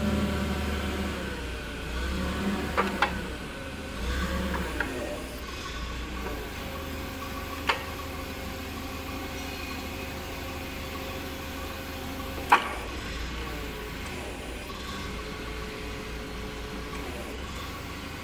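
LPG forklift engine running, its pitch rising and falling in the first few seconds as the hydraulics of a single-double pallet handler attachment work the forks. Sharp metal clunks: two about three seconds in, one near eight seconds, and the loudest about twelve and a half seconds in.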